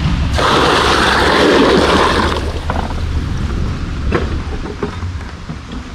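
Wind buffeting the microphone: a steady low rumble, with a louder rushing gust in the first two seconds or so.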